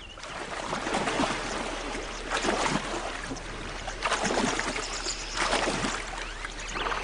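Water sloshing and splashing around hippos shifting in shallow river water, coming in several uneven surges.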